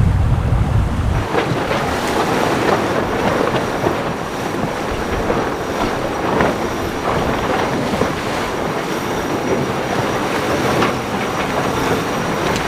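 Water rushing past the hull of an IMOCA racing yacht sailing fast: a steady loud hiss full of small knocks and rattles, with a thin high whine held throughout. A heavy low wind rumble drops out about a second in.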